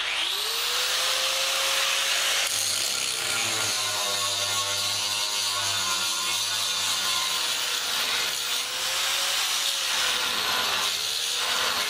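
Angle grinder starting up and then grinding down welds on a wrought iron gate: a steady high whine over a harsh grinding hiss, the whine wavering slightly in pitch as the disc works the metal.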